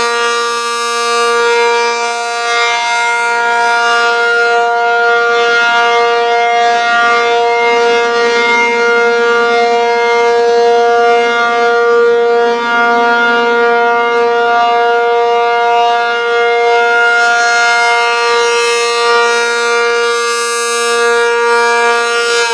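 ACA P-50 rotating outdoor warning siren sounding its steady alert signal: one loud, unwavering tone whose brightness swells and fades a little as the rotating horn sweeps around. This is the steady-tone alert of a routine monthly siren test.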